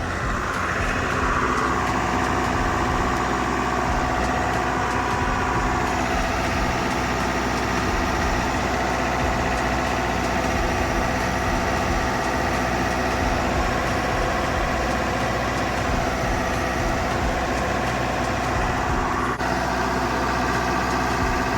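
John Deere diesel engine of a trailer-mounted Kohler generator running steadily during a test run on the 480-volt setting of its newly replaced rotary voltage switch.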